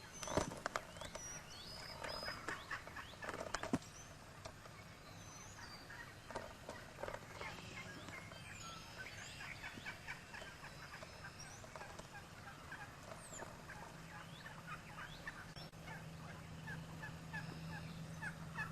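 Wild turkeys gobbling, with loud rattling gobbles in the first few seconds and then a long run of rapid calls. Small birds chirp faintly above them.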